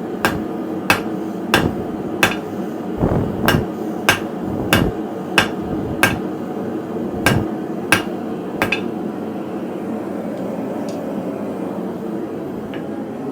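Blacksmith's hand hammer striking hot steel on an anvil while forging a hook, about a dozen evenly paced blows, roughly one and a half a second. The hammering stops about two-thirds of the way through, leaving a steady background noise.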